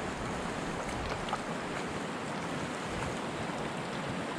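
River current rushing steadily over a gravel bar and through a turbulent pool, an even hiss of moving water.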